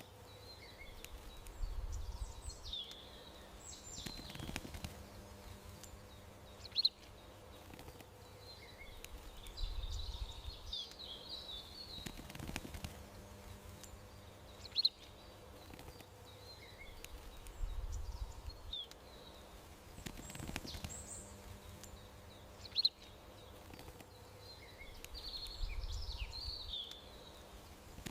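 Songbirds chirping and twittering in a short pattern that repeats about every eight seconds: a single sharp high chirp, then a cluster of twittering notes, over a faint low rumble and a steady hum.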